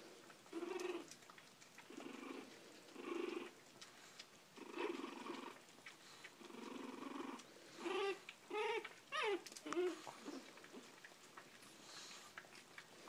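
Pug puppies grunting and snuffling in short repeated bursts, with a cluster of brief high, bending whines about eight to ten seconds in.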